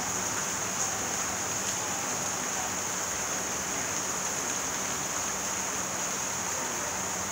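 Steady rain falling, an even hiss with a bright high edge and no single drops standing out.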